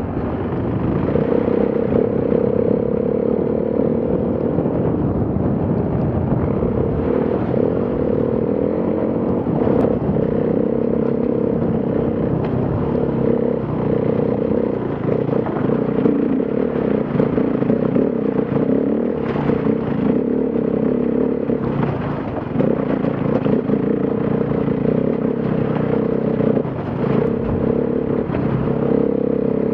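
Enduro motorcycle engine running steadily under load on a rocky uphill climb, its note dipping briefly several times as the throttle is eased, with stones clattering and knocking under the tyres.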